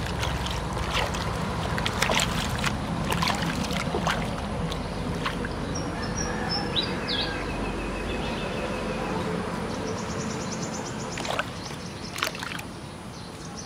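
Water sloshing and splashing in a plastic basin as hands scrub a baby monkey in soapy bathwater, with short irregular splashes throughout.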